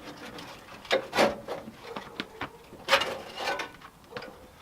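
A Skyline GT-R's front bumper bar being worked up and off the intercooler's top pegs: a few short scrapes and rubs with small knocks, the two biggest about one second and three seconds in.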